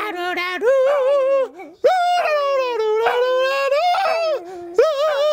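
Dog howling on cue when coaxed to "sing": long, wavering calls broken by a couple of short gaps.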